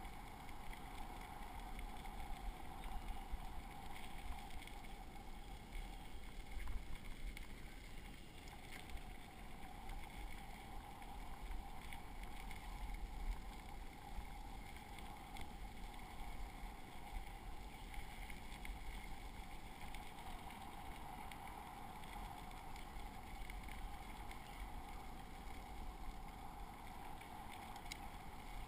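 Bicycle rolling along a gravel trail: a steady rumble of tyres on the loose surface with a faint steady hum, and a few louder bumps in the first half.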